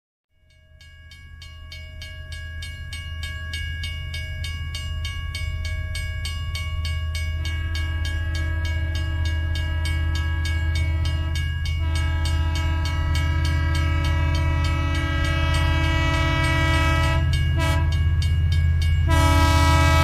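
A low steady rumble under a sustained chord of horn-like tones that shifts pitch a few times, fading in and growing gradually louder.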